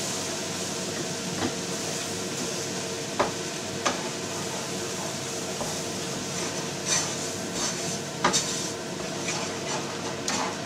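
Wooden spatula stirring and scraping a thick sour-cream-and-flour roux in a frying pan, with a few sharp knocks against the pan and scraping swishes now and then. A steady low hum runs behind it.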